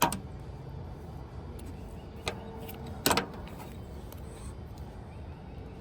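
A few sharp clicks and knocks of hard parts being handled during work on an electric scooter. The loudest comes about three seconds in, over a steady low background hum.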